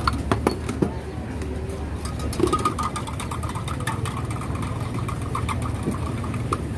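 Steady low engine rumble, like an idling vehicle or passing traffic, with a few sharp clinks in the first second.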